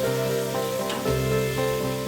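Food sizzling as it fries in a hot pan, with steady hissing, over background guitar music.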